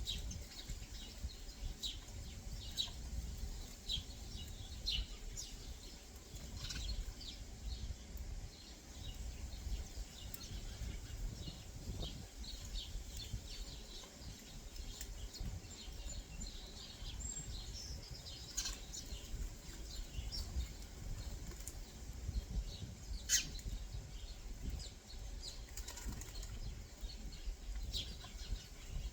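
Small backyard birds chirping, with many short, scattered calls throughout and a steady low rumble underneath.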